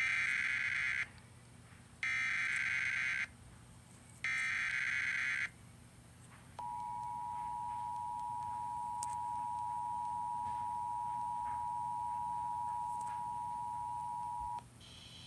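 Emergency Alert System activation: three one-second bursts of SAME header data tones about two seconds apart, then the steady two-tone attention signal, held for about eight seconds before it cuts off. It heralds a National Weather Service severe thunderstorm warning.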